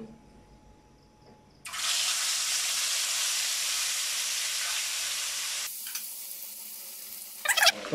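Tail half of a turmeric-and-salt-rubbed grouper frying in hot oil in a pan. After a quiet start, a loud, even sizzle starts suddenly about one and a half seconds in as the fish meets the oil, then settles to a softer sizzle for the last couple of seconds.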